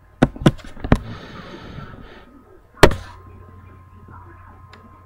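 Handling noise on the webcam: three quick sharp knocks with a rustling scrape between them, then one loud knock a little before halfway.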